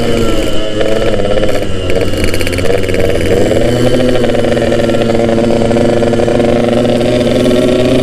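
Yamaha RX-King's 135 cc two-stroke single-cylinder engine running under way, heard from the rider's seat. The revs rise and fall over the first few seconds, then hold steady.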